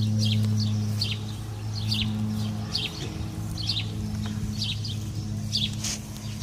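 A small bird chirping over and over, short high notes about two a second, over a steady low mechanical hum.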